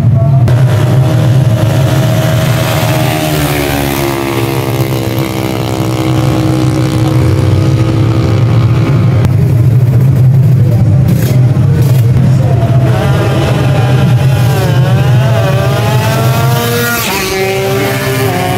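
Drag-race motorcycle engines revving hard, over a steady low drone. The pitch slides slowly down midway, then rises and dips sharply again near the end.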